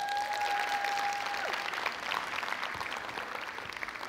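Audience applauding at the end of a talk, the clapping slowly dying down. Near the start, one person gives a long, rising, held whoop over the clapping.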